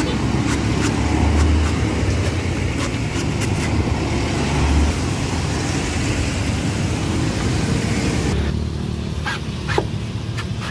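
Steady rumble of engines and road traffic, with sharp knocks of a cleaver chopping into coconuts on a wooden block, three clear chops near the end.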